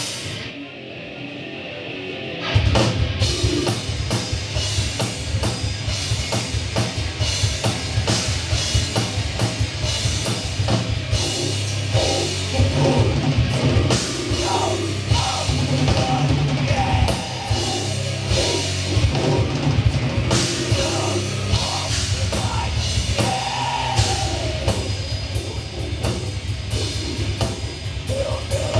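Live heavy metal band playing loud: drum kit with dense, fast drumming under distorted electric guitars and bass. The full band crashes in suddenly about two and a half seconds in, after a brief lull.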